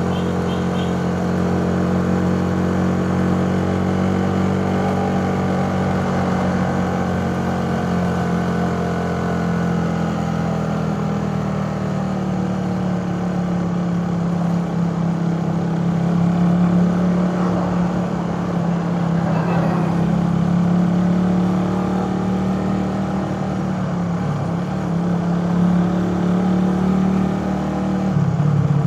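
Suzuki Raider 150 carburetted single-cylinder four-stroke motorcycle engine running under way, its note holding fairly steady with slow rises and dips in pitch as the rider holds and eases the throttle.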